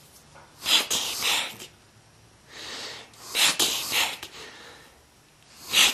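A person making breathy, whispered voice sounds in three bursts, roughly every two and a half seconds, each with two or three pulses.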